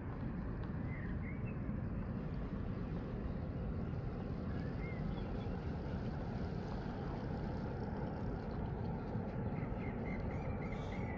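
Steady low outdoor rumble of wind and distant noise, with a few short bird chirps and a quick run of chirps near the end.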